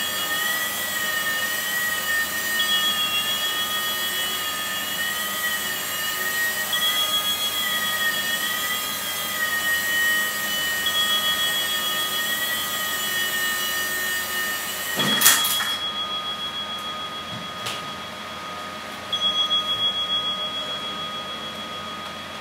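Blade mSR micro RC helicopter's electric motors whining, the pitch wavering as it flies. About fifteen seconds in there is a sharp knock as it strikes something and comes down, after which a steadier whine slowly fades.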